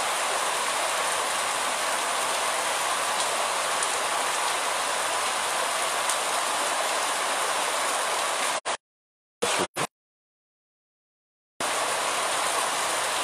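Steady rain pouring down onto a paved street and tree leaves, an even hiss. A little past the middle the sound drops out completely for about three seconds, apart from two brief blips, then returns unchanged.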